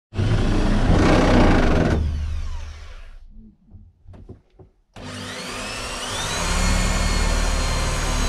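Handheld electric drill boring into a wall: it runs for about three seconds and winds down, a few small knocks follow in a short pause, then it starts again about five seconds in with a rising whine that levels off into a steady run.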